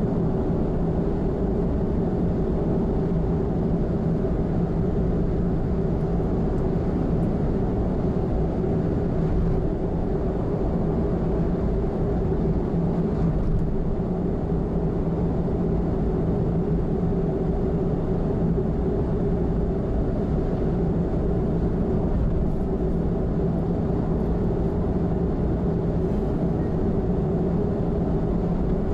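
A car cruising at steady expressway speed: constant tyre and engine noise with a steady low drone.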